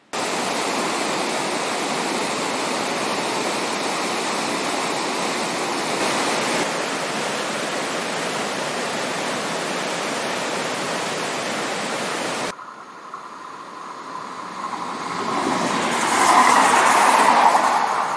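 A steady, even rushing noise that cuts off suddenly about twelve seconds in. Then a train approaches and passes close by, growing to its loudest near the end.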